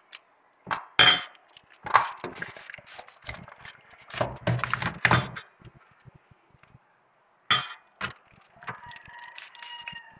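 Hands working wet chile marinade into a raw whole chicken in a disposable aluminium foil pan: irregular slaps, rubbing and knocks of the bird and pan being handled.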